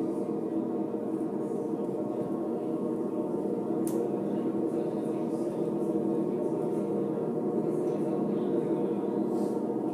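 Live experimental drone music: a steady, unchanging drone of many held overlapping tones.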